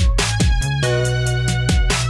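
Background music: a track with deep sustained bass notes and a steady drum beat.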